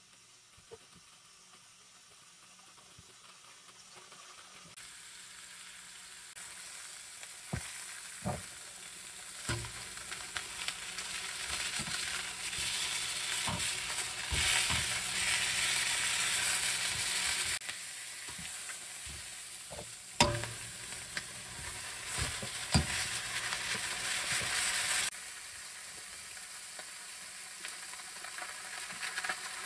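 Chicken legs sizzling as they fry in a hot stainless steel pan, the hiss building over the first few seconds, loudest in the middle, then easing down in two steps. A few sharp clacks of metal tongs on the pan as the pieces are handled.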